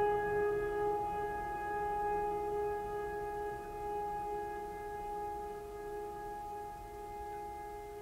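A sustained ringing tone with a row of steady overtones, slowly fading, its lowest tone wavering slightly: a drone or singing-bowl-like ring in ambient music.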